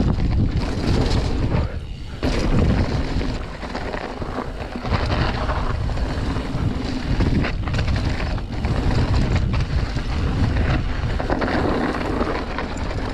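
Wind buffeting the microphone and rough rumble from a mountain bike rolling over a snowy, muddy trail. The level rises and falls with the ride, with a few brief lulls.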